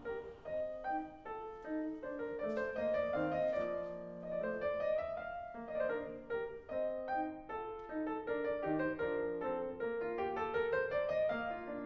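Piano music, a steady flow of single notes and chords.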